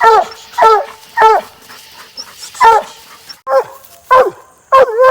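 Coonhound barking repeatedly: about eight short, loud barks at uneven intervals, each one dropping in pitch.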